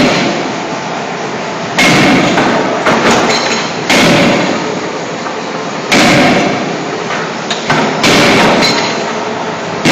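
CNC hydraulic forging hammer striking a hot scissor blank in its die: four heavy blows about two seconds apart, with lighter knocks between, over a steady din.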